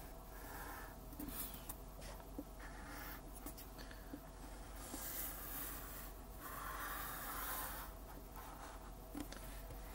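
Black crayon scratching faintly across paper in a series of drawing strokes, tracing a letter outline, with short pauses and a few small taps between strokes; the longest stroke comes about two-thirds of the way in.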